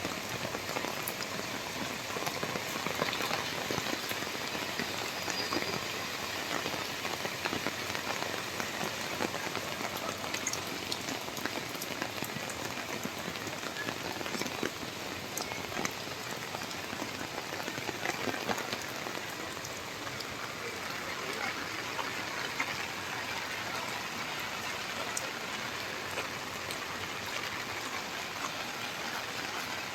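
Heavy rain falling steadily, a continuous wash of sound dotted with many small drop ticks.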